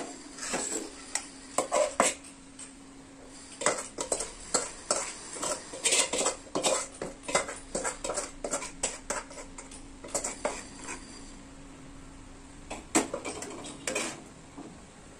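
Steel ladle scraping and clinking against an aluminium pot as sticky caramelized sugar-coated noodles are scraped out into a steel bowl: irregular clinks and scrapes, with a louder clank near the end as the pot is set down on the stove.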